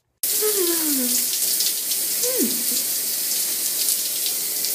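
Shower spray running steadily with a hiss. Over it, a woman's voice makes two short falling vocal sounds.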